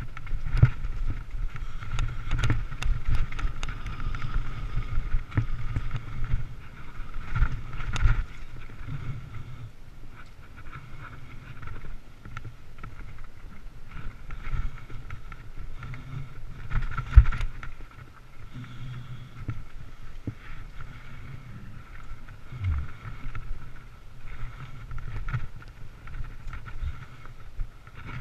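Mountain bike rattling over rough dirt trail: irregular clatter and knocks from the bike's frame, chain and components, over a low wind rumble on the microphone, with a steady high hum underneath. One hard jolt, the loudest hit, comes a little past halfway.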